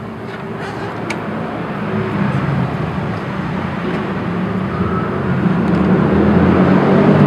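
A road vehicle's engine running and growing steadily louder over several seconds, as if approaching, mixed with outdoor street noise.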